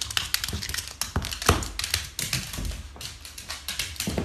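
A small dog's claws clicking and scrabbling on a hardwood floor as it runs: rapid, irregular taps.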